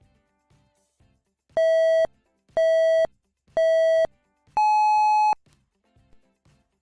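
Electronic countdown beeps: three short beeps on one buzzy pitch, a second apart, then a longer, higher beep, the race-start style signal that the test is beginning.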